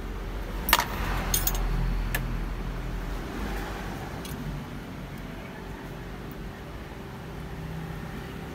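A few sharp metallic clicks in the first two seconds as a test lead's alligator clip is handled, over a steady low hum.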